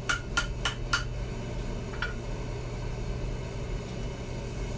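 Hand hammer striking a red-hot steel knife blade on an anvil while the blade bevels are being forged: four quick ringing blows in the first second, about three a second, then one lighter blow about two seconds in. A steady low hum runs underneath.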